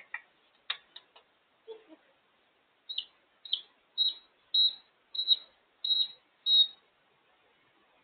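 African grey parrot clicking a few times, then giving a series of seven short, high beeps, about one every 0.6 seconds. The first beeps slide down in pitch and the later ones are steadier, like an electronic beep.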